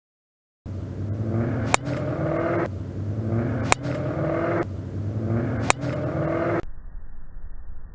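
Three sharp clicks of a golf club striking the ball, about two seconds apart, each over the same hum that rises in pitch, the same shot heard three times over. Near the end, a duller, muffled noise takes over.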